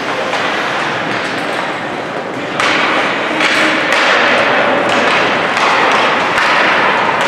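Ice hockey rink noise: a dense wash of game and crowd sound with scattered thuds and clacks of pucks, sticks and boards. It gets suddenly louder about two and a half seconds in.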